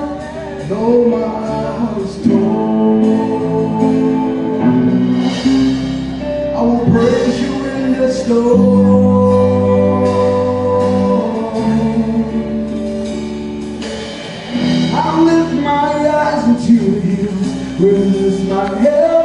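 Gospel song: voices singing sustained lines over instrumental backing with a steady bass.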